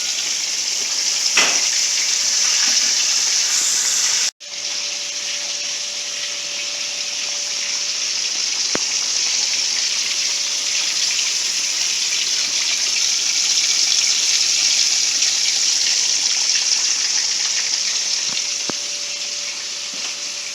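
Chicken frying in a pan of hot oil, a loud steady sizzle. The sound cuts out for an instant about four seconds in, then carries on with a faint steady hum underneath.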